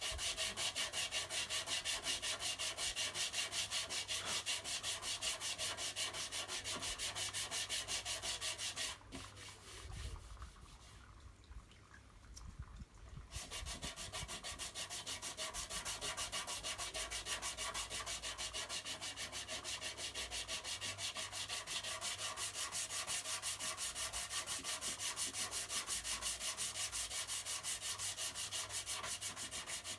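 Sandpaper dry-sanding cured body filler, rubbed back and forth in even strokes of about three a second. The strokes stop for about four seconds roughly nine seconds in, then resume.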